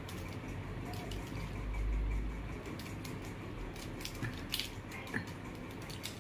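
Plastic mirror cube being twisted by hand: its layers click and clack in short, irregular turns. A low rumble about two seconds in is the loudest sound.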